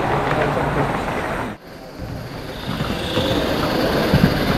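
Live steam model locomotives running on a garden-railway layout, with voices in the background. The sound drops out suddenly about a second and a half in, then comes back.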